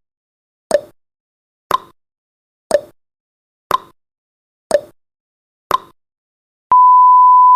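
Countdown timer's tick-tock sound effect, ticking once a second with the pitch alternating between tick and tock, six times. Then a steady high beep starts about a second before the end, sounding as the count reaches zero.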